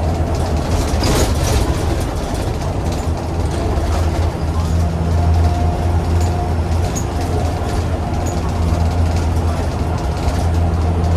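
Single-deck bus with a Cummins ISBe185-30 diesel engine running under way: a steady low engine drone over road noise.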